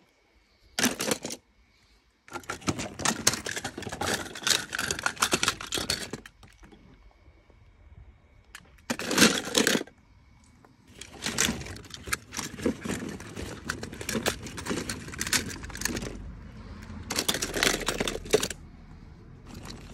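Small toy trains clattering and clinking against each other as a hand rummages through a plastic tub full of them, in several rattling bursts with short pauses between.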